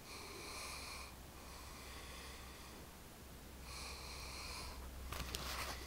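A person snoring: three long breaths, the middle one fainter. Near the end comes a short, louder burst of scuffling noise with a few sharp clicks.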